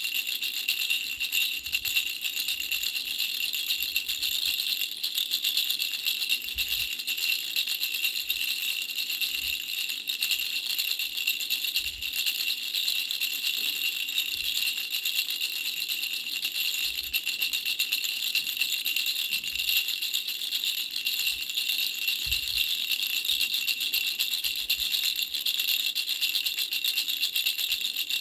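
Baby's bell rattle (a three-flower bell rattle) shaken without a break: a steady, high, bright jingling of small bells.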